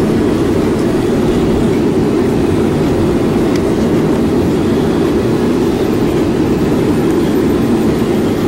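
Steady low rumble of a moving vehicle heard from inside its cabin: engine and road noise.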